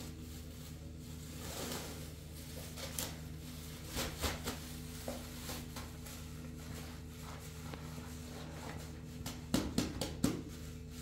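Kitchen handling sounds: a few knocks of dishes or utensils about four seconds in and a quick cluster of sharper clatters near the end, over a steady low hum.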